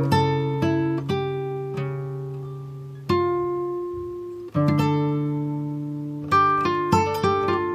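Background music: plucked acoustic guitar playing slow picked notes and chords that ring out, with quicker picking near the end.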